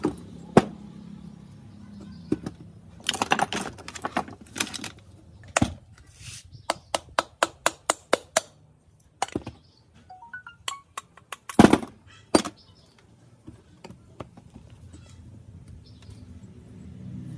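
Hand tools knocking and tapping on sprayer parts in a series of sharp strikes. About halfway through comes a quick run of even taps, about five a second, then a few single heavier knocks, the loudest one a little past two-thirds of the way in.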